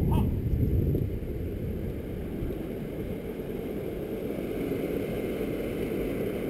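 Wind buffeting the microphone and the rolling rumble of a mountain bike riding a muddy dirt trail, loudest in the first second and then steady.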